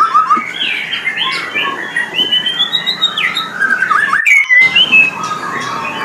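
White-rumped shama (murai batu) singing: a run of clear whistled notes that glide up and down, breaking off briefly about four seconds in and then going on.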